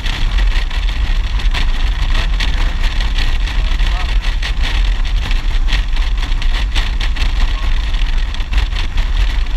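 Wind buffeting a helmet-mounted microphone on a Harley-Davidson motorcycle riding at road speed, a loud steady rumble with the engine running underneath.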